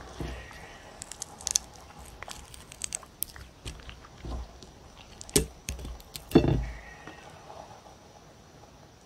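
Dog chewing a piece of cucumber: scattered small crunching clicks, then two louder crunches about five and six seconds in.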